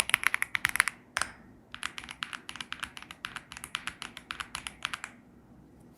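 Typing on a Womier S-K71 aluminum-cased mechanical keyboard: quick runs of keystrokes with a couple of brief pauses, stopping about five seconds in.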